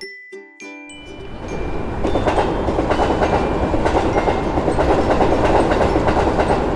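A train running past on the rails: after a brief quiet moment at the start, the noise of the train builds over about a second and then runs on steadily and loud.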